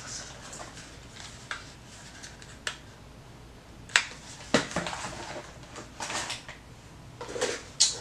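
Plastic hair-styler brush attachments and cardboard packaging being handled: scattered light clicks and knocks. The sharpest click comes about four seconds in, and a few more come near the end.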